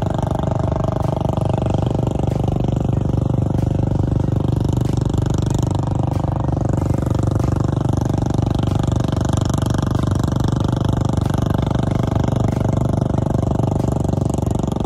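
ATV engines running steadily as the quads churn through a water-filled mud hole.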